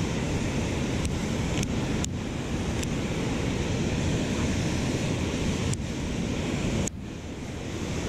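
Steady rush of water pouring over a low concrete dam spillway, with wind rumbling on the microphone.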